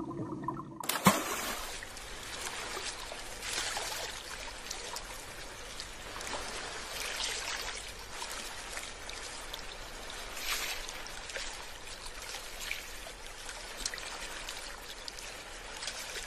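Water trickling and running steadily. It starts abruptly about a second in.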